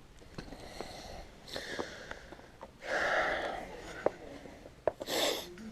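A dog snuffling and snorting in snow: three breathy bursts, the loudest a second long near the middle, with a few sharp clicks between them.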